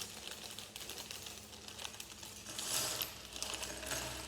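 Small plastic Lego bricks clicking and clattering against each other and the table as a freshly opened bag of parts is handled, a quick run of light clicks with a denser rattle about three seconds in.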